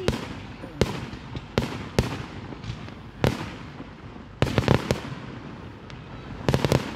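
Aerial fireworks bursting: a string of sharp bangs about a second apart, then quick clusters of several reports about four and a half and six and a half seconds in.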